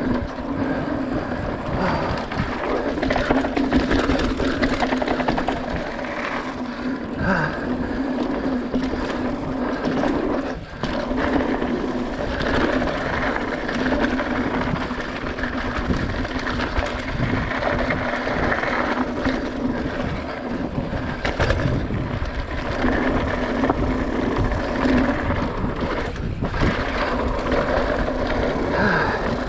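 Mountain bike ridden down a dirt trail: steady rolling and rattling noise from the tyres and bike, with frequent knocks over bumps.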